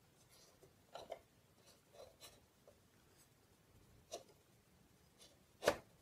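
Faint plastic clicks and taps of a Canon Typestar 10-II typewriter key being pressed down and let go by hand, a few scattered clicks with a louder one near the end. The key is still sticking after its keycap's shaft was sanded.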